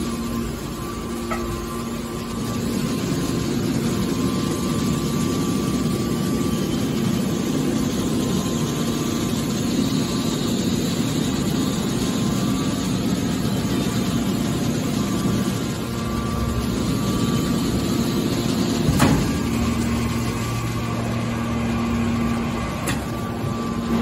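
Hydraulic scrap metal baler's power unit running with a steady hum and a higher whine. A sharp metallic click comes about three-quarters of the way through, and another shortly before the end.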